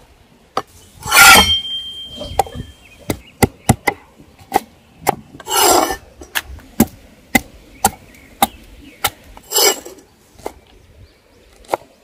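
A cleaver chopping lemongrass and chillies on a wooden chopping board: sharp knocks of the blade into the wood, roughly two a second. Three longer scraping sounds break in: about a second in, midway, and near the end. The first is the loudest.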